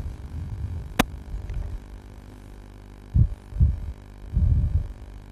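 Wind buffeting an outdoor microphone: irregular low rumbling gusts over a steady low hum, with one sharp click about a second in.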